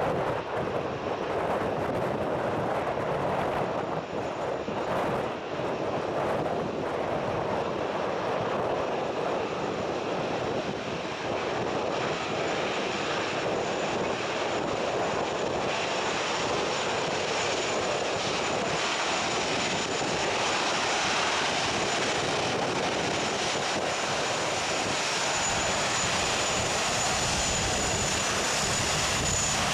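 Airbus A380's four Rolls-Royce Trent 900 turbofans running at taxi power: a steady jet rumble with a thin high whine. The high part of the sound grows stronger in the second half as the airliner comes closer.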